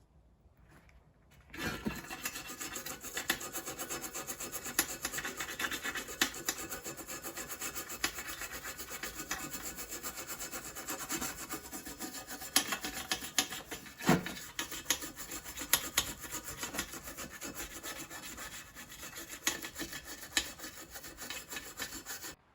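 Toothbrush bristles scrubbing a spirit level's frame with white spirit: a rapid, continuous scratchy rubbing of quick back-and-forth strokes, starting about a second and a half in and cutting off abruptly near the end.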